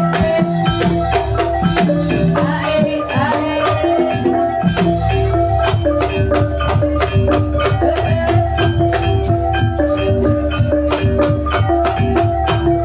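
Gamelan ensemble playing ebeg dance accompaniment: struck keyed instruments ringing out repeated notes over a quick, steady percussion beat. A deep low tone comes in about five seconds in and holds under the rest.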